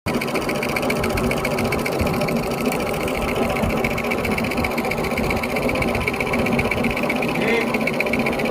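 Motorised fan coil winding machine running steadily at speed, a fast, even mechanical whir with no change in pace.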